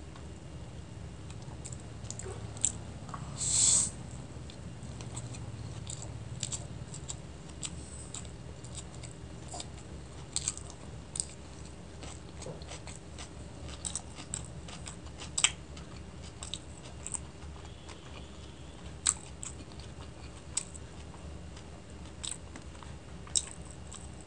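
Close-miked chewing of chow mein noodles, with many short wet mouth clicks and smacks scattered throughout. One louder half-second burst comes about three and a half seconds in.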